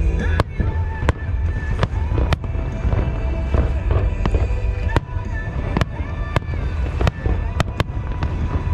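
Aerial fireworks bursting: about ten sharp bangs at irregular intervals, with a lull in the middle, over music and a deep rumble.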